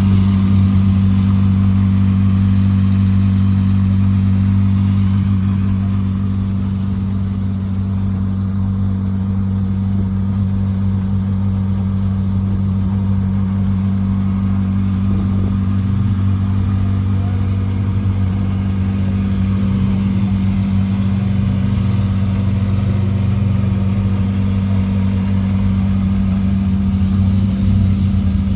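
Car engine idling steadily with an even, unchanging low hum.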